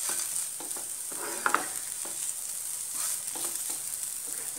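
Onion, grated potato and green chillies frying in oil in a non-stick pan, sizzling steadily as a spoon stirs and scrapes them around, with a sharper scrape about one and a half seconds in.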